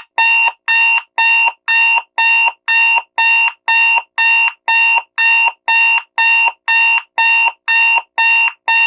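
Loud digital alarm clock beeping: identical short beeps of several tones at once, about two a second, evenly spaced.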